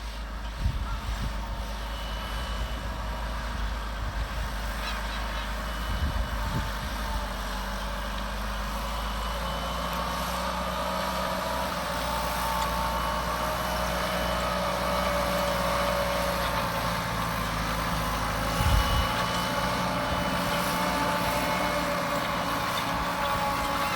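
Tractor engine running steadily under load while pulling a plough through stubble, with a few low thumps of wind on the microphone.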